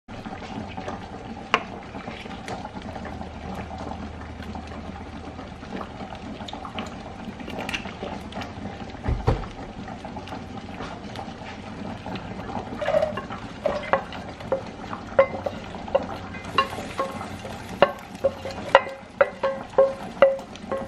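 Cooking on the stove: a steady bubbling and sizzling hiss, with a low bump about nine seconds in. From about twelve seconds on, a utensil clinks repeatedly against a metal pan, roughly twice a second, each clink ringing briefly.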